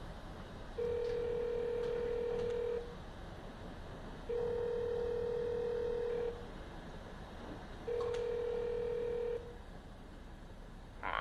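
Telephone ringback tone: three long, steady, mid-pitched beeps of about two seconds each, separated by short gaps, the third a little shorter.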